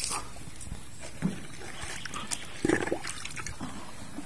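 Water sloshing and trickling, with a few short knocks, the loudest about a second and a half before the end.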